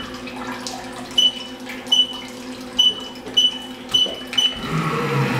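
CNC mill running a Renishaw spindle-probe cycle on an aluminium part, with six short high beeps spaced about half a second to a second apart over the machine's steady hum and hiss. Near the end a louder whir with gliding tones starts up as the machine moves on.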